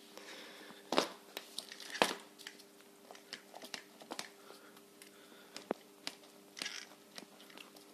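Handling noises from a 1:10 RC rock crawler chassis being turned over and set down on the floor: scattered clicks and light knocks of its plastic and metal parts. The two loudest come about one and two seconds in, over a faint steady hum.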